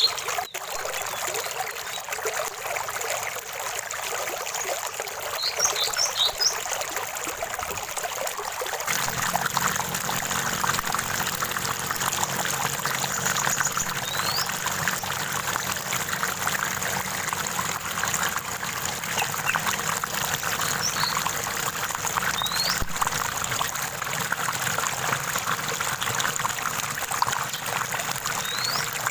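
Running stream water trickling and splashing steadily, with a few short high bird chirps and quick rising whistled notes scattered through. About nine seconds in, the water sound becomes fuller and deeper.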